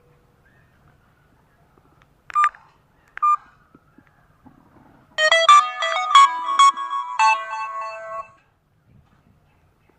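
Cherry Mobile smartphone playing its tones: two short electronic beeps a second apart a little over two seconds in, then a quick electronic ringtone melody of many notes lasting about three seconds, which cuts off sharply.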